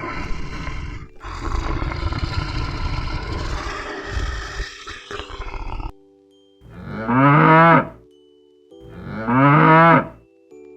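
A cow mooing twice, each moo a bit over a second long, after several seconds of a rough, unpitched animal sound. A soft held music tone sits underneath.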